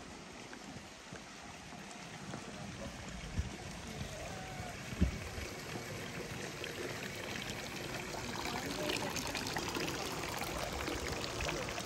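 Steady rush of running water that grows louder in the second half, with faint voices in the background and a single knock about five seconds in.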